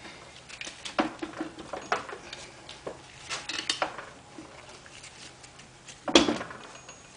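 Scattered metal clinks and taps as a BMW K75 transmission is worked onto its alignment pins by hand and with a tool, with one louder knock about six seconds in.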